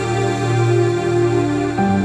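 Background music with held chords, changing to a new chord near the end.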